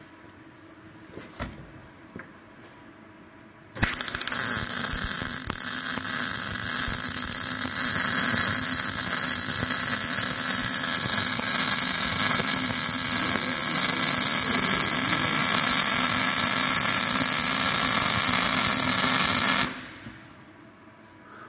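MIG welding arc crackling steadily as a bead is run on sheet steel, starting suddenly about four seconds in and cutting off abruptly near the end when the trigger is released.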